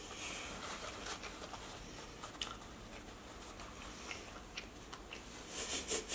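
Chewing and soft wet mouth sounds of someone eating a meatball slider with spaghetti buns, with scattered small clicks and a brief cluster of louder smacks near the end.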